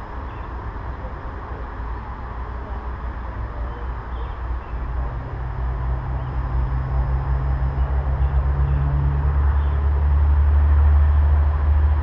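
A low engine hum that grows steadily louder, loudest near the end.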